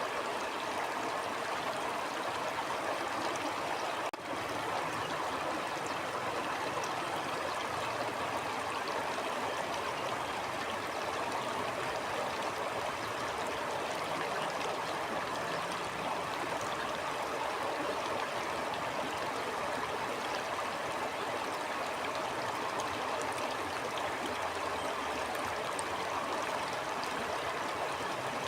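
Steady rushing and babbling of a flowing stream, with a momentary drop in level about four seconds in.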